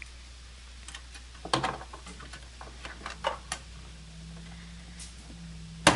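Scattered clicks and knocks of hands working inside a desktop computer case, unplugging SATA cables from the drives. A cluster of sharp clicks comes about a second and a half in, a few more follow, and the sharpest comes near the end.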